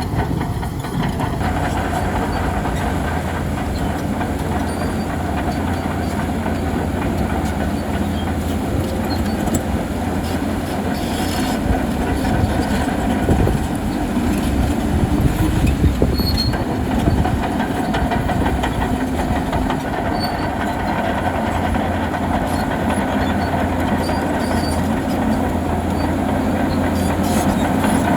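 Bulldozer working: its diesel engine runs steadily while the steel crawler tracks clank and squeal.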